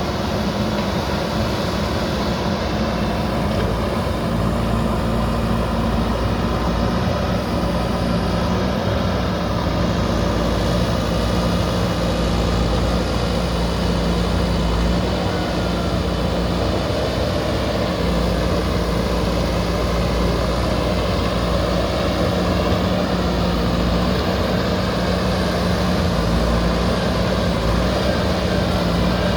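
Diesel engine of a JCB backhoe loader running steadily, an even drone with a strong low hum and no sharp knocks.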